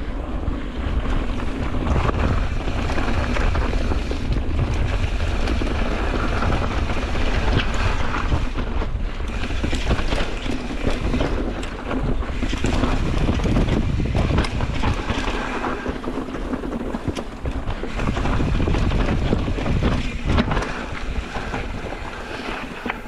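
Wind buffeting the camera microphone over a mountain bike riding fast down a dirt and rock trail: tyres rolling on the ground with frequent knocks and rattles from the bike over bumps.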